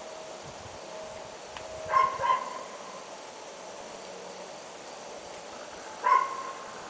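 A dog barking in short, sharp barks: two in quick succession about two seconds in, and a single bark near the end.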